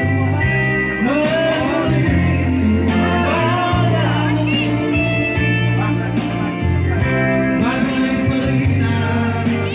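A singer's voice over guitar-led band accompaniment, the sung phrases starting about a second in and resting briefly near the end while the instruments play on.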